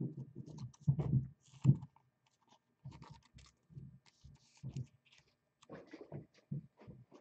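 Trading cards and plastic card holders being handled on a table: irregular soft clicks, light knocks and scratching.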